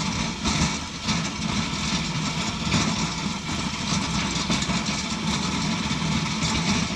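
Heavy snowplow vehicle with a V-shaped front blade running steadily as it pushes snow off a road: a continuous engine rumble under a steady rushing noise.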